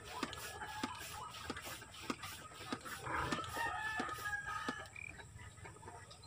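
A rooster crowing once, about three seconds in and lasting nearly two seconds, over faint scattered clicks.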